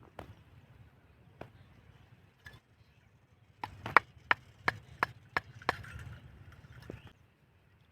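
A series of sharp knocks or taps. One comes near the start and another about a second and a half in, then a quick run of about seven at roughly three a second from about three and a half seconds in, and a last one near the end.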